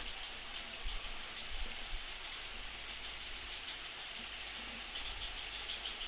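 Steady hiss of microphone and room noise, with a few faint keyboard keystrokes.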